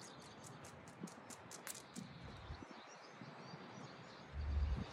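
A dog's claws clicking on brick paving as it trots over, several light clicks a second for about the first two seconds. A brief low thud comes near the end.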